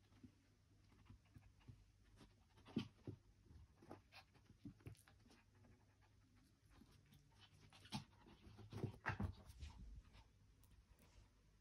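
Small Chihuahua-type dog panting faintly, with scattered light scratches and taps as its claws scrabble at a plastic chair seat while it reaches for a chew bone.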